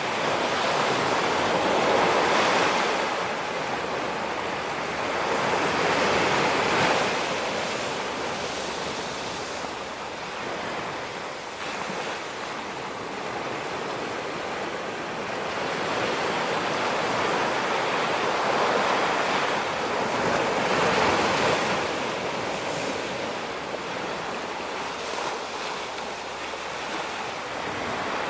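Ocean waves breaking and washing up a beach, a steady rush that swells and fades every few seconds. The louder surges come near the start and again about two-thirds of the way through.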